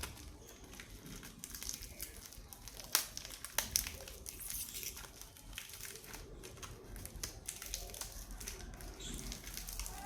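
Chocolate wrapper crinkling and tearing as it is unwrapped, with a continuous run of sharp crackles; the loudest snaps come about three and four seconds in.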